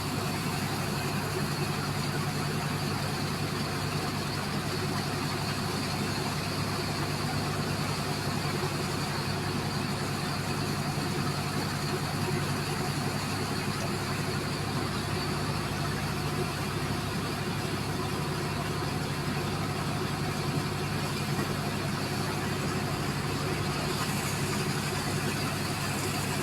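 An engine running steadily at an even pitch under a continuous rushing hiss of a high-pressure water jet spraying into sand.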